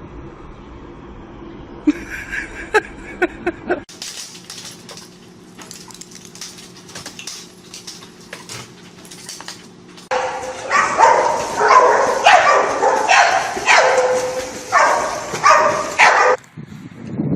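A dog calling repeatedly, about eight loud pitched calls in quick succession in the second half, after quieter clicks and handling noises.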